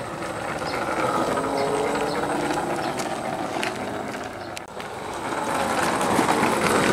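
Homemade RC car's electric motor and plywood gear train running as it drives, a mechanical whirring rattle whose pitch rises and falls with speed.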